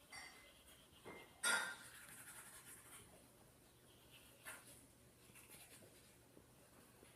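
Faint scratchy scrubbing of toothbrushing, in short uneven strokes, with a louder scrape about a second and a half in and another about four and a half seconds in.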